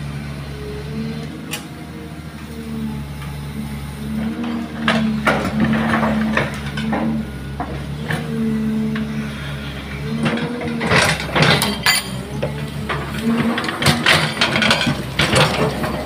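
CAT hydraulic excavator working from the cab: the diesel engine hums steadily under a whine that rises and falls as the hydraulics swing, dump and dig. Clusters of knocks and crunches from the bucket and soil come in the middle and come more thickly in the second half.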